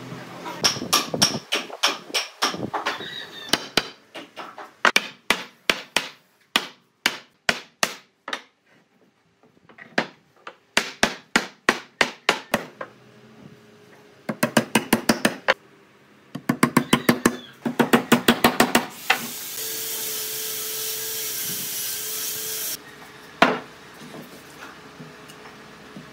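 Hammer driving nails into wooden boards: runs of quick, sharp blows, several a second, with short pauses between the runs. About two-thirds of the way through, a steady hiss lasts about four seconds and then stops suddenly.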